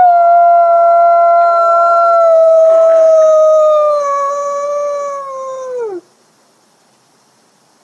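Gray wolf howling: one long howl that sinks slowly in pitch, then falls steeply and cuts off about six seconds in.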